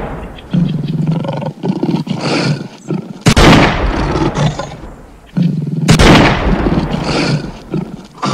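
Lion roaring and growling in loud bouts, each starting abruptly, the first about three seconds in and the next near six seconds, with a rapid pulsing growl in between.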